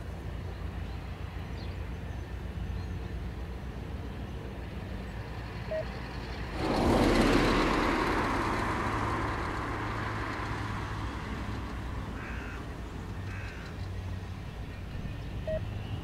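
Turboprop engines of a pair of Pilatus trainer aircraft landing in formation and rolling out, a steady low drone. About a third of the way in it jumps suddenly louder with a rushing noise, then fades back over a few seconds. Two short bird calls come near the end.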